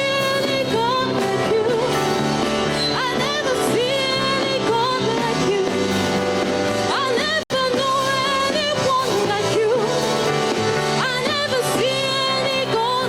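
Worship band music with a sung melody over steady accompaniment. The sound cuts out for a split second about halfway through.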